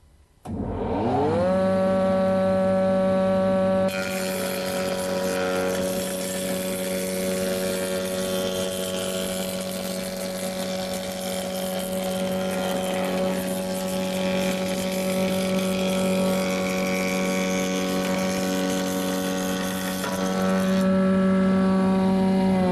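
Startrite PT 260 planer-thicknesser switched on: its motor and cutter block run up to speed within about a second and settle into a steady hum. About four seconds in, the cutters begin cutting a rebate along a length of softwood, adding a rushing planing noise that lasts until near the end, when the machine goes back to its plain running hum.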